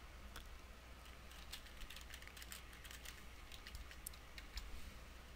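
Faint typing on a computer keyboard: a run of irregular single keystroke clicks.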